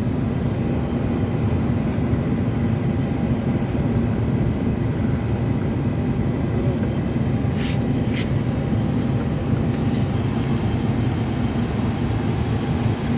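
Steady, loud drone of running machinery, low and even, with a few sharp metallic clicks about halfway through.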